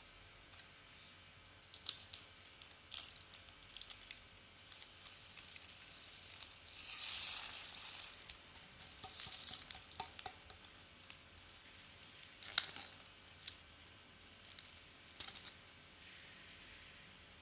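Diamond-painting drills being poured from a tray into a plastic bag: a quiet hissing rush of tiny beads about seven seconds in, with scattered light clicks and plastic crinkling around it.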